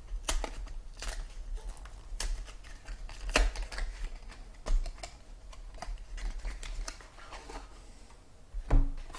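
Trading-card packaging being opened by hand: irregular crinkling, tearing and sharp clicks, with a few louder snaps.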